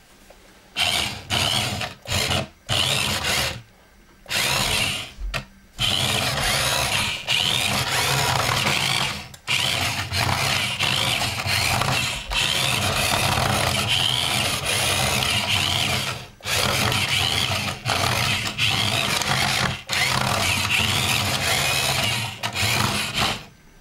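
Toy RC car's small electric drive motor and gears whirring, in several short bursts at first and then almost continuously with a few brief stops. Its hard rubber rear wheels are spinning on a wooden surface with little traction.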